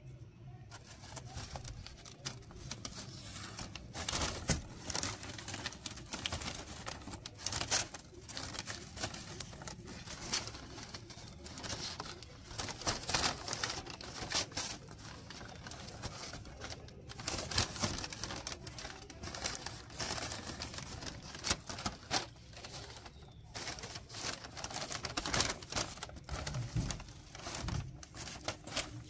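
Newspaper sheets rustling and crinkling in irregular bursts as they are handled and folded.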